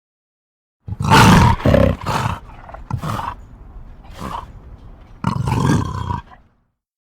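Gorgonopsid creature sound effect: a series of animal-like roars. After about a second of silence come two loud roars back to back, then a few softer growling calls, and a last loud roar near the end.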